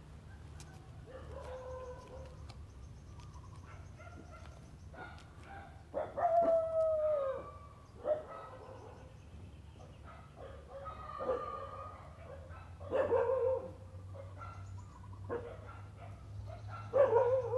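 A series of animal calls: a loud, long call about six seconds in that falls in pitch at its end, then shorter calls every few seconds, over a steady low hum.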